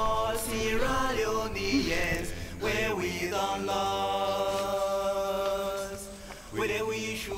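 Music of a voice singing a slow chant: short sliding phrases, then one long held note from about three seconds in to about six, over a steady low drone.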